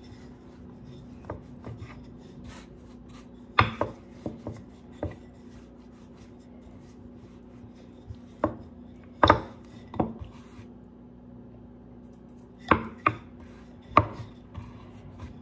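Wooden rolling pin rolling pork-bun dough flat on a wooden cutting board, with irregular sharp wooden knocks as the pin strikes and is set against the board. A steady low hum runs underneath.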